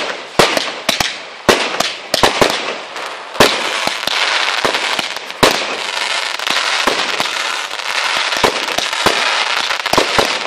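Fireworks display firing a rapid, irregular barrage of sharp bangs, several a second, over a continuous crackling and hissing of burning stars and sparks.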